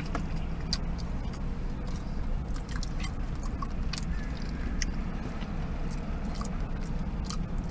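A person chewing a bite of KFC Original Recipe fried chicken, with small irregular wet clicks and crackles, over a steady low hum in the car.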